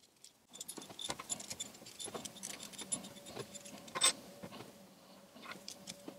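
Small metallic clicks and taps of a camera's metal mounting bracket, its screw and cable being turned over in the hands, with a sharper click about four seconds in. Near the end a small hex key is put to the bracket screw.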